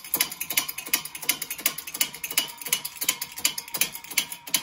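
Shop press running down on a U-joint cross to push its cap out of an axle shaft yoke, with rapid, even mechanical clicking at about three clicks a second over a faint steady whine.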